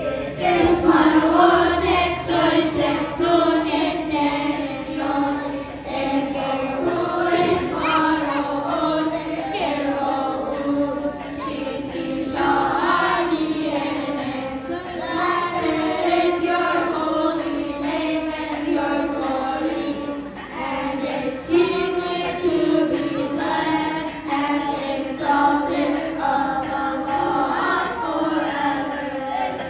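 Children's choir singing a hymn.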